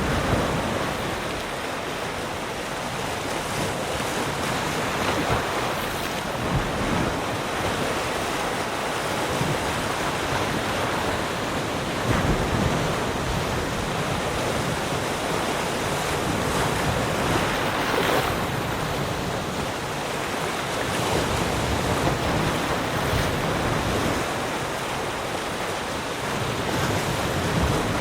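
Ocean waves breaking and washing in, a steady surf hiss that swells every few seconds as each wave comes in.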